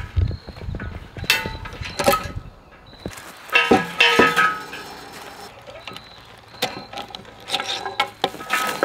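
Metal clanks, clinks and chain rattle from a chain-and-ratchet woven-wire fence stretcher being released and taken off the stretcher bar: scattered sharp metal knocks with short ringing, loudest about four seconds in.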